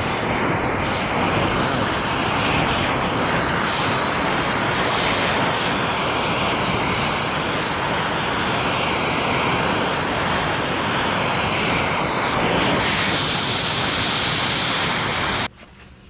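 Gas torch flame hissing steadily as it heats a rusted hydraulic line nut on a tractor's valve body to free it. The hiss cuts off abruptly near the end as the flame is shut off.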